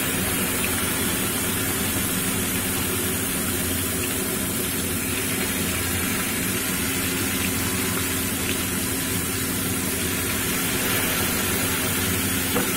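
Marinated chicken pieces frying in hot oil with cumin seeds in a pan, a steady sizzle.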